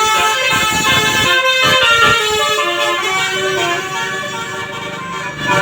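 A bus's multi-tone 'telolet' musical air horn playing a tune: several horn notes sound together and shift in pitch step by step.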